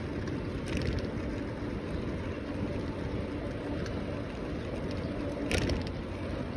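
Steady wind rumble on the microphone of a phone riding on a moving bicycle's handlebar, with a brief click about five and a half seconds in.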